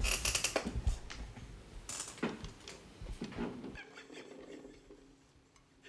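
Soft scratchy rustles and light knocks of small things being handled, dropping to quiet room tone with a faint steady hum after about four seconds.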